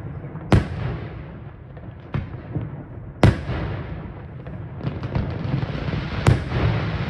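Aerial fireworks display: three loud shell bursts about three seconds apart, with smaller bangs and a continuous rumble of further explosions between them.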